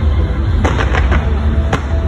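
Aerial fireworks bursting: a string of sharp bangs and crackles, most of them in the second half, over a continuous deep rumble, with music playing alongside.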